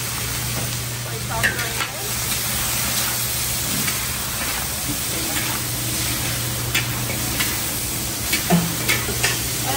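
Chow mein noodles and cabbage sizzling in a large wok, with a steady hiss of frying. Several sharp scrapes and knocks come from a metal ladle on the wok as the noodles are tossed, the loudest near the end.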